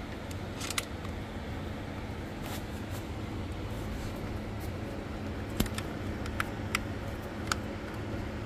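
About half a dozen light metallic clicks and taps as bolts are started by hand into a transmission valve body and its lead frame, over a steady low hum.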